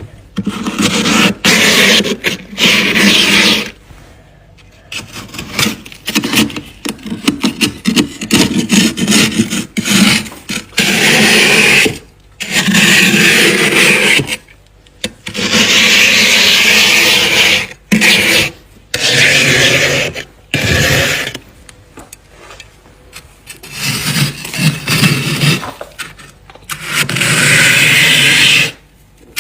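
Dry, squeaky frost being scraped from the inside of a deep freezer in a series of long, loud strokes of one to two seconds each, with runs of quick sharp crackles between the strokes.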